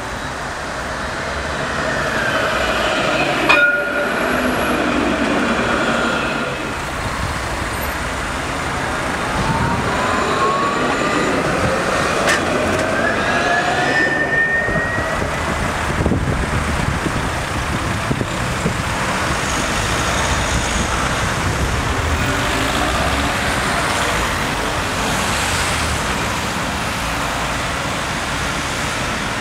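Alstom Citadis trams' electric traction drives whining over the rumble of steel wheels on rail. The whine falls in pitch in the first few seconds as a tram slows, then about ten seconds in it climbs steadily as a tram accelerates past close by.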